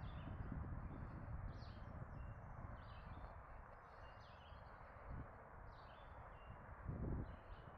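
Small songbirds chirping in short, scattered calls over a steady low background rush, with a couple of soft low thumps near the end.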